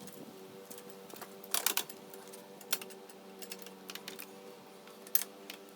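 Irregular light metallic clicks and taps of a carriage bolt and spacer being worked through the steel tubing of a table saw stand's wheel assembly, louder about a second and a half in and again near the end. A faint steady hum runs underneath.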